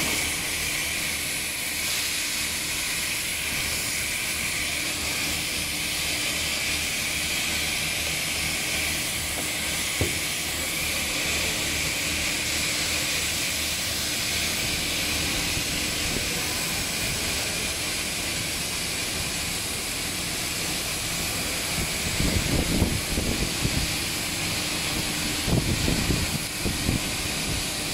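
Flexible spiral duct forming machine running with a steady hiss and a low hum. About two-thirds of the way through and again near the end, the plastic duct rustles and crackles loudly as it is handled.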